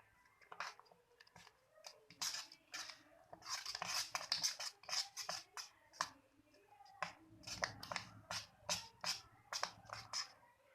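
Pancake batter being stirred by hand in a bowl, the utensil clicking and scraping against the bowl in quick, irregular strokes.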